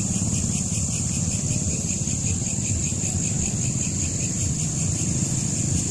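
Steady low rumble of road traffic, with a constant high hiss over it.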